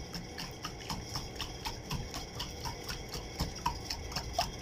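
Metal wire whisk beating fast in a glass bowl, knocking against the glass in a quick run of clicks, several a second. The jelly mixture is being whisked quickly over ice so that it sets in fine small bits.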